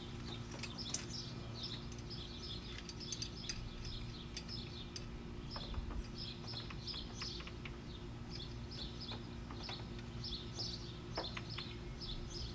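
Small birds chirping and tweeting repeatedly in the background, over a steady low hum, with a few faint clicks from hand work.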